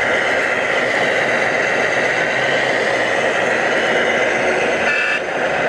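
Radio-controlled model construction machines running, a steady high whine of small electric motors and gearing over a dense mechanical hiss, with a brief change and a dip about five seconds in.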